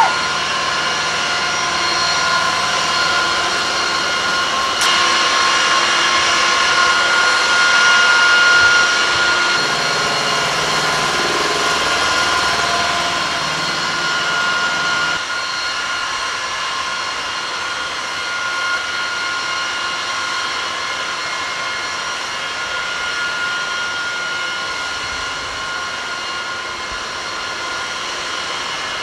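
Steady high-pitched whine of jet turbines running, several tones held over a broad rush of noise.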